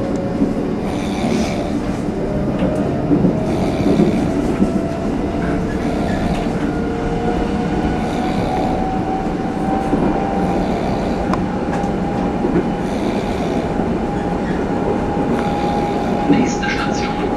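Train running with a steady rumble and an electric motor whine that rises slowly in pitch, over which a man snores loudly, a rasping breath about every two seconds. A voice comes in near the end.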